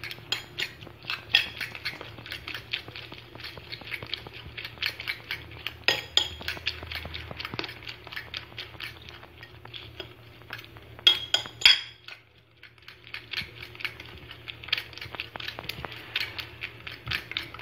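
Raw eggs being beaten in a bowl with a utensil: quick, rapid clinking of the utensil against the bowl, with a short pause about twelve seconds in.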